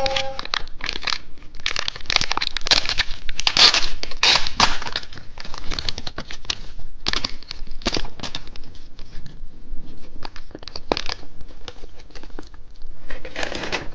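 Crinkly plastic wrapper of a two-colour cheese stick being handled and torn open: a dense run of crackles and rips, busiest in the first two-thirds and sparser near the end.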